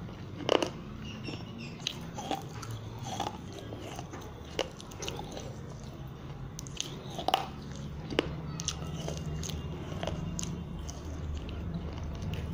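Close-up chewing and crunching of broken baked-clay diya pieces in the mouth: irregular sharp crunches, the loudest about half a second in and another about seven seconds in, over a steady low hum.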